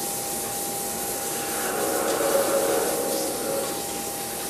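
Steady workshop machine noise: an even hiss with a thin, steady high whine, swelling a little in the middle.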